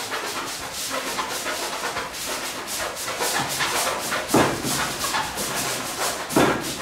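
Roller-blind fabric being rolled up by hand on a table, a continuous rustling and brushing, with two sharper knocks about four and a half and six and a half seconds in.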